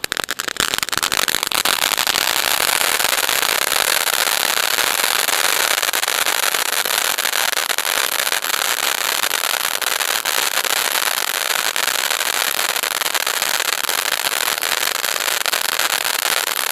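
Ground fountain firework burning: a steady, dense hiss of sparks shot up from the tube, full of fine crackling, catching at once and staying at an even strength.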